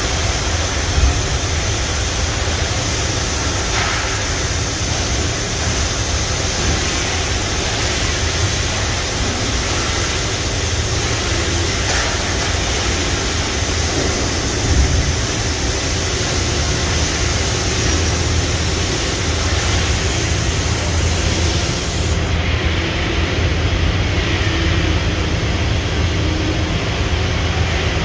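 Okuma MA-600H-II horizontal machining center running with coolant spraying inside its enclosure: a steady hiss over a low hum. About three quarters of the way through, the highest part of the hiss cuts off suddenly while the hum carries on.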